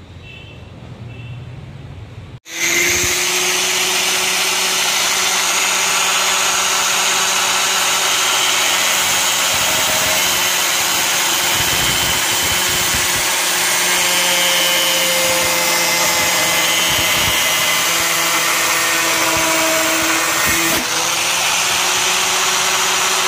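DeWalt angle grinder with a thin cutting disc running and cutting into the edge of a plastic CPVC rain gutter. It is a loud, steady whine that starts abruptly about two and a half seconds in.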